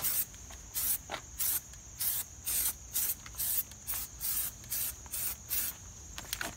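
Aerosol can of black rubberized undercoating spraying in short hissing spurts, about two to three a second.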